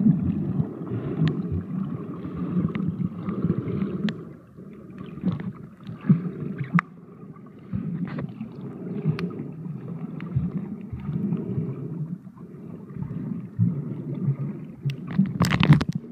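Muffled underwater water noise around a submerged camera: a low rumble that swells and fades every second or two as the swimmer moves, with scattered sharp clicks. A louder hissing burst comes near the end.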